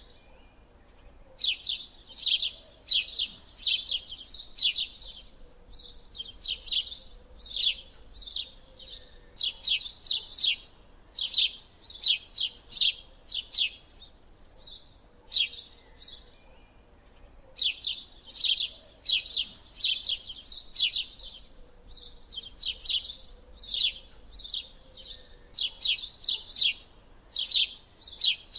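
A small bird chirping in quick runs of sharp, high notes, with a pause of a few seconds about halfway through.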